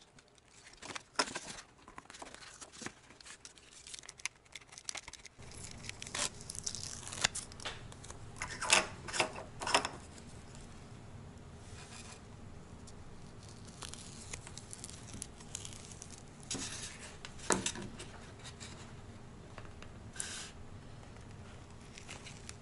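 Hands handling a helmet communicator speaker and its foam cheek pad: scattered rustles, scrapes and clicks, with a cluster of short tearing rips about a third of the way in, typical of hook-and-loop fastener or adhesive backing being peeled.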